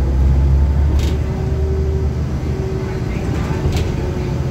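Inside a moving New Flyer D40LF diesel city bus: the steady low drone of the engine and road rumble, with a faint steady whine above it. There are two short clicks, about a second in and again near the end.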